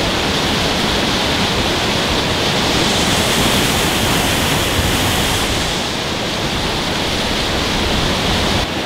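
Waterfall on a mountain stream: a steady, loud rush of falling water.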